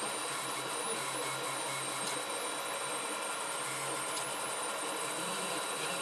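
3D printer running mid-print: a steady hiss and hum from its fans, with stepper motors whining in tones that shift pitch as the print head moves.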